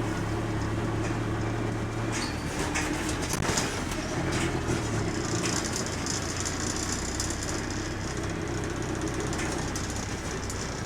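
Bus's diesel engine running, heard from inside the passenger saloon, with short rattles about two to four seconds in. The engine note changes about four seconds in, and a steady hiss rises after it.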